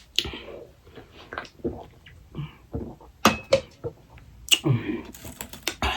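Close-up eating sounds of pani puri: crisp puri shells crunching and chewing, heard as a string of irregular short clicks and crunches.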